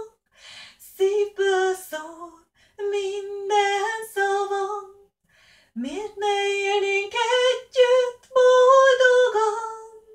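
A woman singing a Hungarian song unaccompanied, a slow melody with long held notes and short breaths between phrases. These are the song's closing lines.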